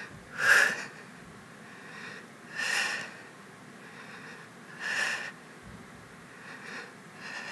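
A woman breathing out sharply four times, about every two seconds, one forced exhale on the effort of each rep of a kneeling side leg raise; the first exhale is the loudest.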